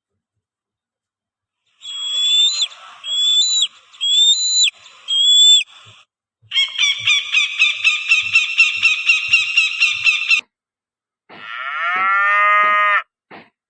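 A run of different animal calls with short gaps between them: four short high calls that hook upward at the end, then a long fast-pulsing call lasting about four seconds, then a falling call near the end.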